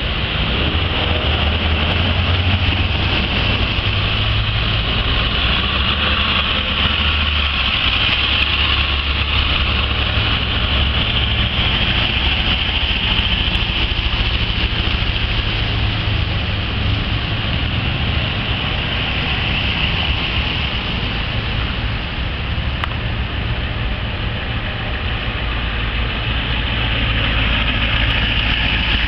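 Steady engine rumble of emergency vehicles, ambulances and a fire engine, rolling slowly past in a line, with no sirens.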